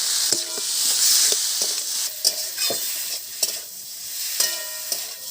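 Potatoes and spice paste sizzling in hot oil in a kadai while a spatula stirs and scrapes against the pan, with repeated scraping ticks and a few short metallic rings.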